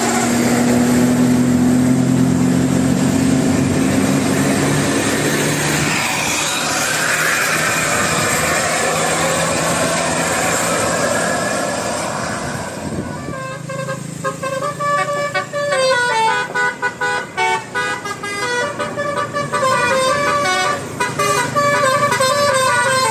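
Bus 'telolet' multi-tone musical horn: a held low horn tone for the first few seconds, then a noisy stretch, then from about halfway on short horn notes stepping up and down in pitch, playing a tune.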